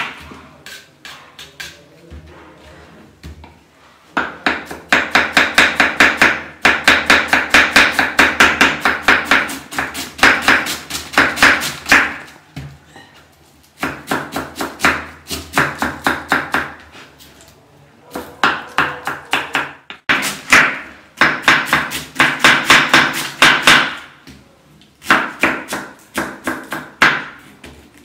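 Kitchen knife shredding a cabbage on a wooden cutting board: quick, even chopping strokes, about five a second, in runs of several seconds with short pauses between, after a few quieter, slower cuts at the start.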